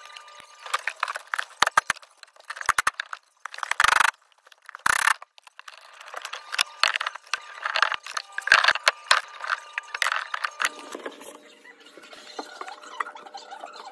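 Irregular clicks, knocks and small clinking rattles from hands working among the pipes and fittings under a kitchen sink, with two short, louder rustling bursts about four and five seconds in.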